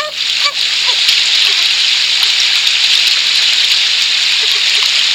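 Steady rain-like hiss of water, even throughout, with a few short honking calls from waterfowl in the first second.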